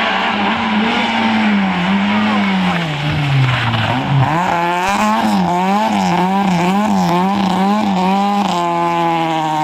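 Peugeot 106 rally car's engine: the revs sink as it brakes into a tight corner about three to four seconds in, then the pitch rises and falls quickly, about twice a second, as it pulls out of the corner, and it holds high revs near the end.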